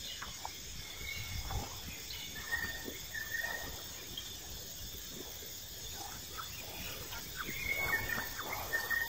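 Quiet outdoor ambience: a steady drone of insects, with a few short high chirps and light rustling.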